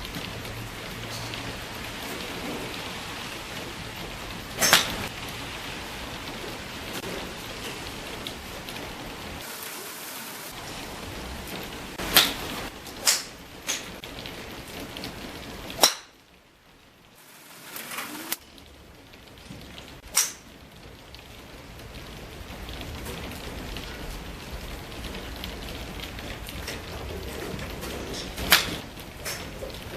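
Golf clubs striking balls: about seven sharp cracks at irregular intervals, a few in quick succession, over a steady hiss.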